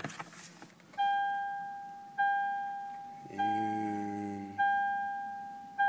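Toyota truck's dashboard warning chime, five single clear tones about 1.2 seconds apart, each fading before the next, sounding with the key in the ignition and the driver's door open. A low steady hum runs for about a second in the middle.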